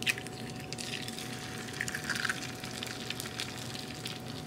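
A raw egg lands on the hot nonstick plate of a Dash Mini griddle at the start, then fries with a steady sizzle and scattered small crackles.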